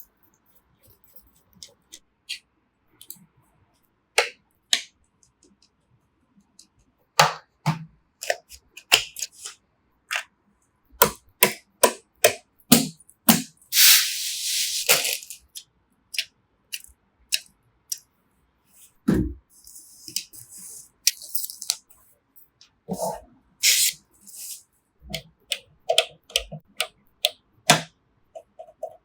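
Irregular sharp clicks, knocks and rattles of computer hardware being handled and fitted together, with a few short hissing scrapes, the longest about halfway through.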